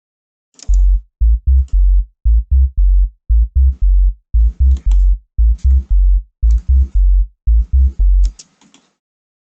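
Deep synth bass from a 3xOsc synthesizer playing a choppy pattern of short notes in quick pairs and threes, about three a second, each with a click at its start. It is heavy, boomy car-audio-style sub bass. It starts about half a second in.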